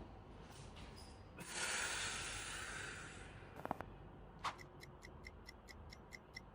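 A short breath-like rush of noise, then a pair of sharp cracks about midway, like joints popping during a chiropractic adjustment. After that comes an even, clock-like ticking about four times a second.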